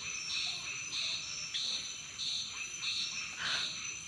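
Night chorus of insects and frogs: a steady high-pitched trill, with a call pulsing evenly about one and a half times a second over it.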